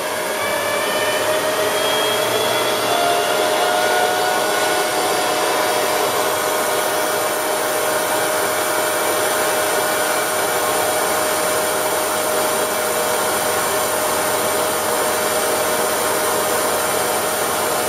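Union BFT125/5 horizontal boring machine's rotary table drive running as the table turns, a steady whirring whine. Its pitch and loudness rise over the first few seconds as the variable speed is stepped up, then hold steady.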